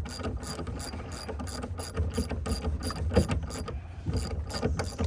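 Hand ratchet wrench clicking steadily, several clicks a second, as it is worked back and forth on a seized truck-bed bolt.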